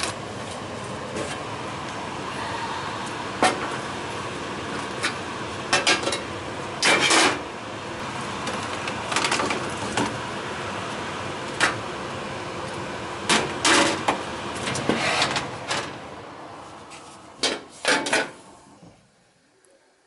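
York gas furnace's blower fan running steadily without heat, the furnace locked out on an open high-limit switch, while its sheet-metal access door is pulled off and handled with a string of sharp metal clanks and rattles. The running noise fades over the last few seconds.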